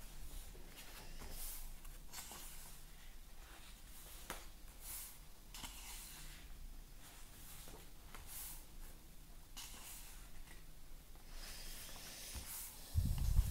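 Pages of a thick-papered paperback colouring book turned and smoothed flat by hand: soft papery swishes every second or so. A dull low bump near the end.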